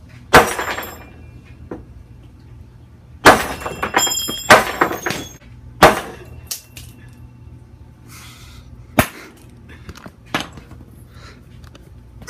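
Hammer blows smashing a fidget spinner on a wooden workbench: a series of sharp, loud strikes, a hard one just under half a second in, a quick flurry from about three to five seconds with a brief metallic ringing, then single strikes near six, nine and ten seconds.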